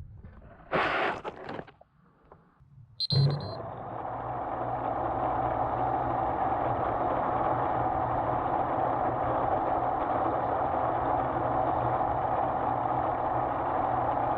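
A short loud rustle about a second in, then a click and a short high beep, after which an FPV quadcopter's motors and propellers whir steadily. Near the end a second short beep sounds and the whir starts to die away.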